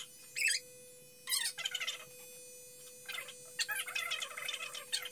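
Corded electric hair clippers buzz steadily while a baby lets out bursts of high-pitched squeals and babble, about half a second in, again around a second and a half, and over the last two seconds.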